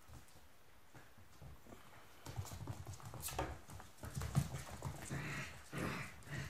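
Six-week-old Smooth Collie puppies playing on a hardwood floor: claws clicking and paws scrabbling, with small knocks and thumps. The clatter starts about two seconds in and gets busier.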